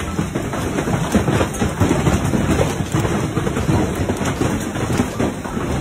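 Heavy hail and rain pelting down in a storm: a dense, steady clatter of countless small impacts.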